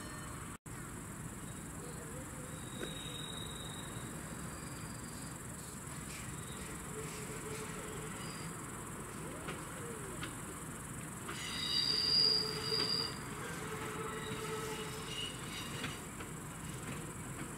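Crickets chirping steadily under the faint sound of a distant Class 810 railbus approaching the station. About twelve seconds in, a brief high squeal swells and fades.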